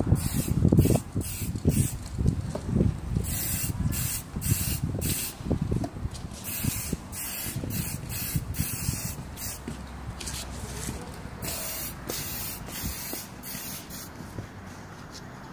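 Aerosol spray-paint can hissing in many short on-off bursts, some held for about a second, with wind buffeting the microphone as a low rumble that eases after about ten seconds.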